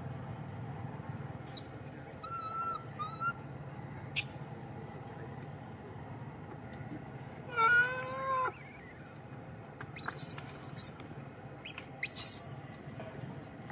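Infant long-tailed macaque crying: a few faint whimpers, then one loud wavering cry lasting about a second and a half near the middle, followed by two short high-pitched squeals.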